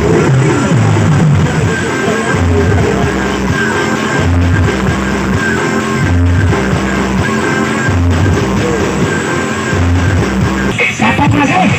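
Loud music blasting from a sound horeg rig of stacked loudspeakers, with deep bass notes repeating every second or two and a singing voice over it. The music changes just before the end.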